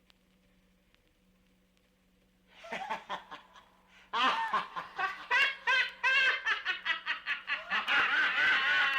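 A person laughing in quick, high-pitched pulses: it starts softly about two and a half seconds in and turns loud about four seconds in. Before that there is near silence, with a faint low hum and a few light clicks.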